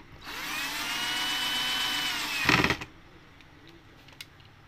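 Electric screwdriver driving a screw into a circuit board. The motor spins up with a rising whine and runs steadily for about two seconds. It ends in a brief, loud rattle and then stops.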